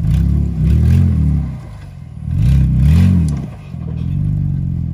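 Jeep Wrangler JK's engine revving in three surges as it crawls up a rock ledge, settling to a steadier run near the end.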